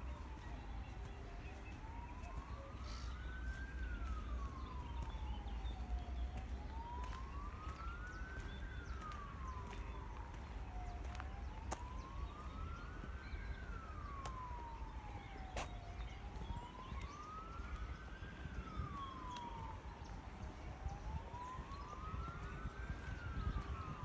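An emergency vehicle siren wailing, its pitch sliding slowly up and then down about once every five seconds, over a low steady rumble.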